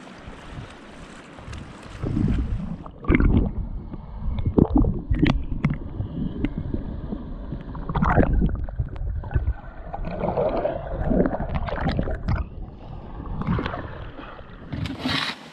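River water rushing steadily, then, about three seconds in, uneven loud splashes and knocks of water around a kayak.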